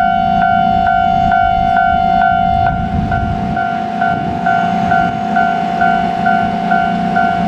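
Japanese level-crossing warning bell ringing steadily, about two strikes a second, over a low rumble.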